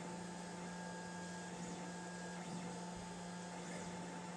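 Lulzbot TAZ 5 3D printer running mid-print: a steady low hum with a fainter, higher steady whine.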